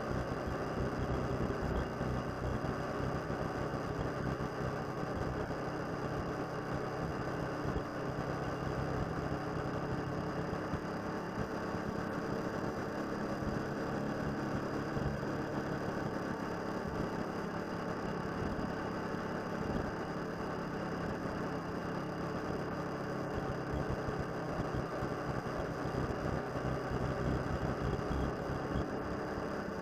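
Motorcycle engine running steadily while riding, heard from on the bike with road and wind noise, its pitch shifting slightly partway through.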